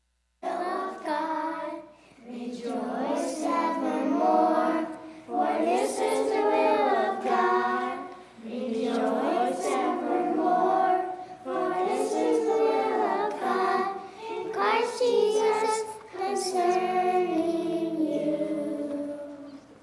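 A group of children singing together, in phrases a few seconds long with short breaths between. The singing starts suddenly about half a second in.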